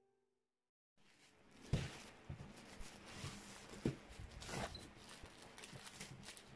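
After about a second of silence, a taped plastic courier mailer is torn and cut open by hand: irregular crinkling and rustling of plastic film with a few sharper knocks.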